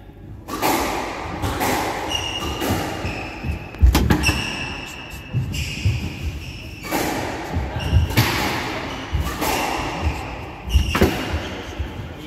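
Squash rally: the hard rubber ball is struck by rackets and smacks off the court walls, a sharp hit every second or so. Short high squeaks from shoes on the wooden floor come between the hits.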